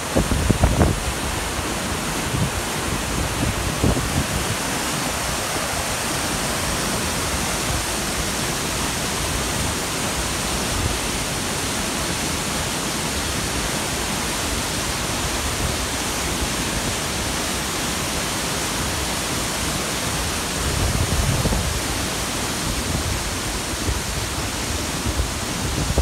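A large waterfall and the white-water river below it: a steady roar of falling and churning water.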